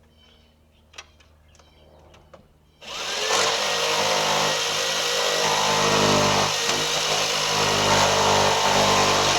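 An electric power saw starts up about three seconds in, its motor whine rising quickly, then runs steadily and loudly while cutting through a wall stud. Before it there are only a few faint clicks.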